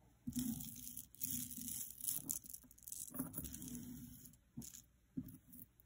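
Costume jewelry being handled on a cloth-covered table: necklace chains and beads rustling and lightly clinking in several short bursts, with a couple of sharper clicks near the end.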